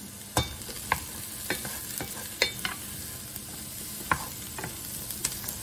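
Sliced champignon mushrooms and onion sizzling in a frying pan as a wooden spatula stirs them. The spatula knocks against the pan in about eight irregular sharp taps over a steady hiss.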